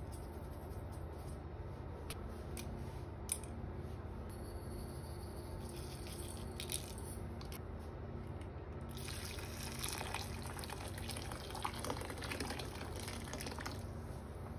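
Hot water poured from a kettle into a stainless steel bowl of sliced radishes, a continuous splashing fill lasting about five seconds in the second half. Before it, a few light taps against the bowl as salt and spices are added.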